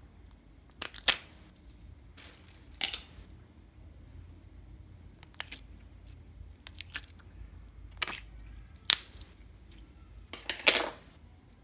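Sharp clicks of a small plastic slime case being handled and its compartment lids snapped open, five or six over the stretch, the longest and loudest near the end, with faint handling of sticky slime between them.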